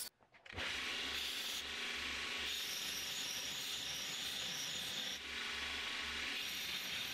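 A belt grinder regrinding a steel hatchet head, giving a steady grinding hiss as the metal is held against the running belt. It starts abruptly about half a second in, after a brief silence.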